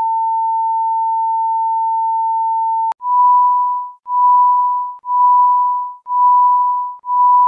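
Electronic test tone played with TV colour bars: one steady tone that cuts off with a click about three seconds in, then a slightly higher beep once a second, five times, each beep fading away.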